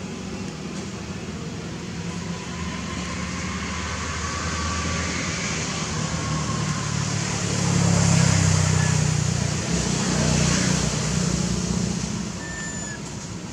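A motor vehicle's engine running nearby, a steady low hum that grows louder about eight seconds in and fades again after about eleven. A couple of short high chirps come near the end.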